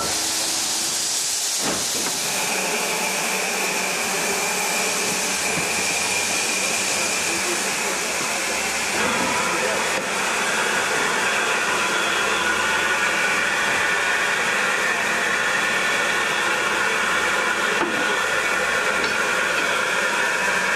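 Steam locomotive hissing steadily as it lets off steam, with a few thin high tones in the hiss and no chuffing beat.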